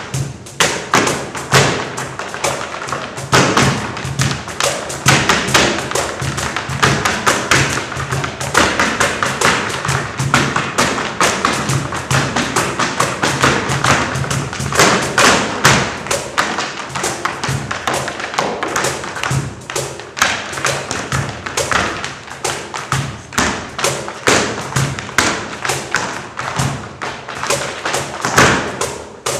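Tap shoes striking a stage floor in rapid rhythmic footwork, a dense run of sharp taps and heavier stamps.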